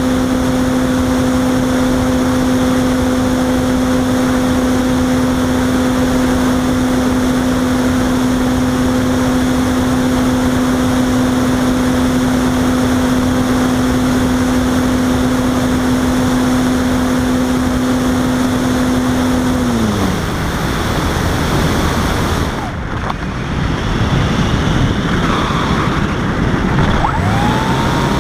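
Wind rushing over the onboard FPV camera of a Robbe Arcus Sport electric RC glider, with the steady whine of its electric motor. About twenty seconds in the motor is throttled back and winds down, leaving only the wind noise, and near the end it spins up again with a rising whine.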